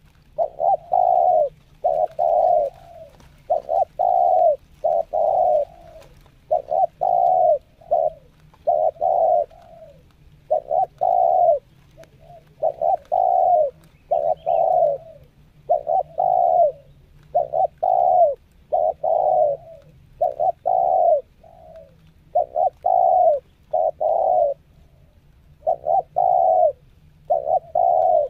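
Spotted dove cooing: short coos in groups of two or three, the groups repeating every second or two with brief pauses between.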